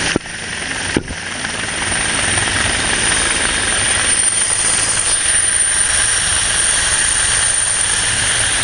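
Helicopter running steadily, a dense continuous noise with a constant high whine. Two sharp clicks come about a quarter second and a second in.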